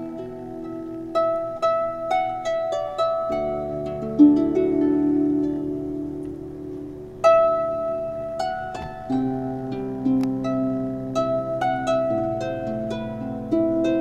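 Background music: a slow melody of plucked notes over held, sustained chords.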